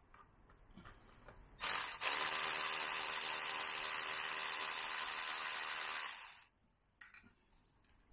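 A cordless power tool's motor running steadily for about five seconds, plausibly spinning out the rear wheel bolts of a BMW R1200GS. It starts sharply and tails off, with a few light clicks before and one click after.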